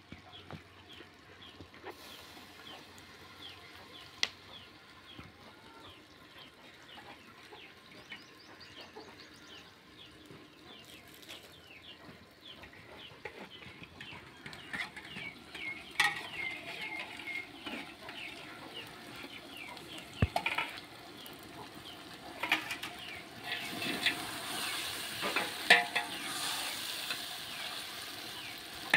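Mint and coriander leaves sizzling in hot masala in an aluminium pot over a wood fire, stirred with a metal spoon that scrapes the pot. The sizzling and scraping get louder over the last several seconds.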